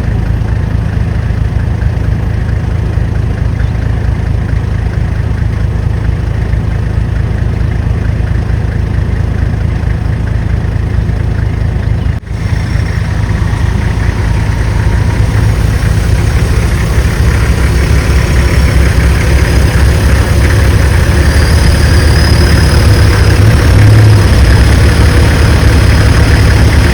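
Safari vehicle's engine running steadily with a low hum. There is a brief break about twelve seconds in, and it grows louder through the second half.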